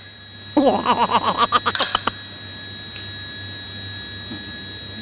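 Exhaust valve being hand-lapped into its seat in a Dodge Nitro's aluminium cylinder head: about a dozen quick back-and-forth strokes of metal grinding against metal through lapping compound, with a squeaky scrape, for about a second and a half starting half a second in.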